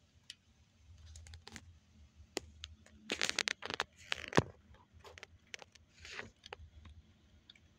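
Kittens scrambling and pawing over plastic containers and a plastic sheet: scattered clicks, scrapes and crinkling rustles, busiest and loudest a few seconds in.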